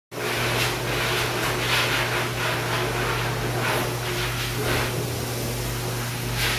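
Water spraying in a stainless steel dog-wash tub: a steady hiss with a low steady hum underneath.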